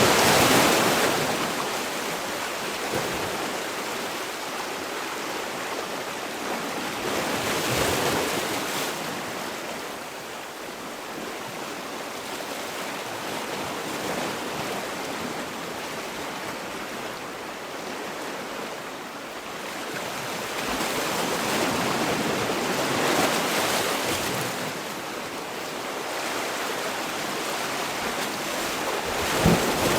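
Sea waves washing in, the surf rising and falling in slow surges several seconds apart, loudest at the start and near the end.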